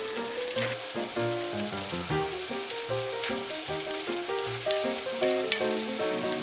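A large batch of sliced onions sizzling in oil in a wide pan, with a few sharp ticks as they are turned with a wooden spoon. Background music of short stepping notes plays over it.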